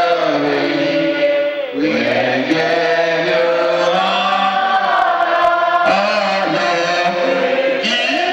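Worship chanting: voices sing long held notes that glide slowly up and down, with a brief break about two seconds in.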